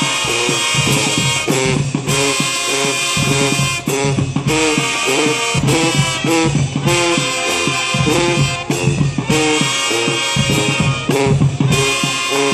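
A band playing, with brass and saxophones over a steady drum beat.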